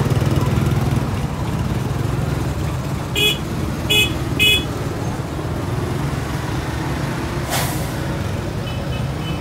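Three short vehicle horn toots, about three to four and a half seconds in, over a steady rumble of idling engines and traffic. A short hiss comes near the end.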